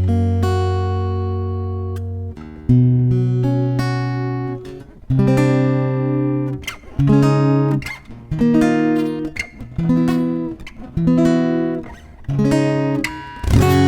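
Giannini SF14 steel-string acoustic guitar being played: a long ringing chord, then chords struck one after another about once a second, each left to ring.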